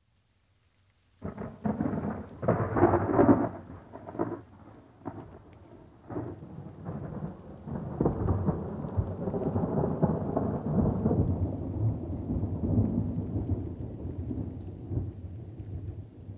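A thunderclap in light rain. A series of sharp cracks starts about a second in and peaks around three seconds. A long rumble then builds and slowly dies away near the end.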